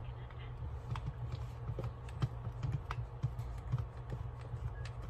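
Irregular light clicks and taps of a small screwdriver and plastic headset parts being handled while the casing is unscrewed, over a steady low hum.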